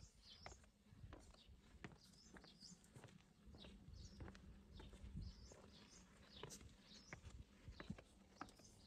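Faint footsteps on a flagstone path, a soft step about every half second at a slow walking pace, with small birds chirping high in the background.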